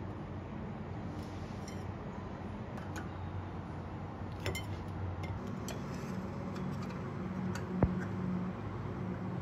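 Metal knife and fork clinking and scraping against a metal tart pan as baked egg tarts are prised out of their cups: a handful of light taps, with one sharp clink near the end, over a low steady hum.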